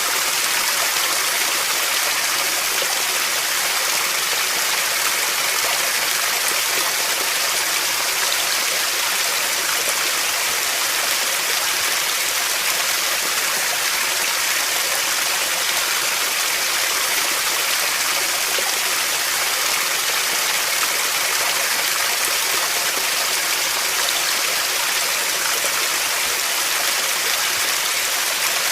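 Running water, a steady, even rush with no changes.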